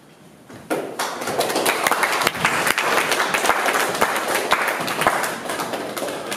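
Audience applauding. It starts abruptly about a second in and dies down near the end.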